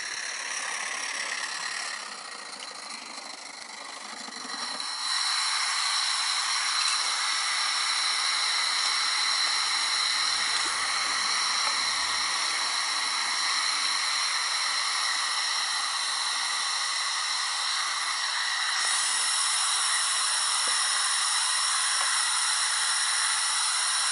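Steady hiss of steam from a small coal-fired vertical-boiler model steam locomotive standing in steam, with a faint high whine in it. It is quieter for the first few seconds and louder from about five seconds in.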